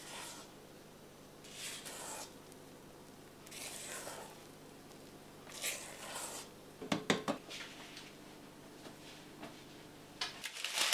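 A utensil folding thick chocolate cake batter in a stainless steel bowl: soft wet swishes about every two seconds. About seven seconds in and again near the end there are a few sharp clinks of metal against the bowl.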